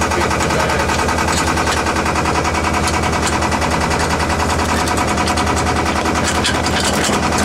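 A sailboat's auxiliary engine running steadily, a low drone with a rapid, even beat.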